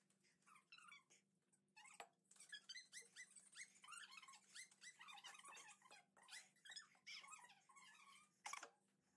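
Small dog whining, with many short, high squeaky cries one after another. A couple of sharp clicks cut in, the loudest near the end.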